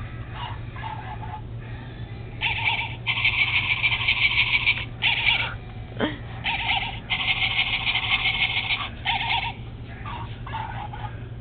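Animal sounds from a toy animal in a shop, in two long stretches about two and a half seconds in and again about six and a half seconds in.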